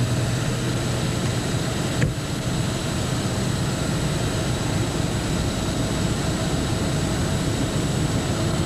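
Steady wind rushing over the microphone in the open. A low hum cuts out with a sharp click about two seconds in.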